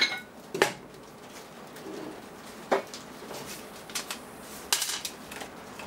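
Heavy metal coil assemblies being set down and shifted on a steel workbench: a few separate sharp clunks and clinks of metal on metal.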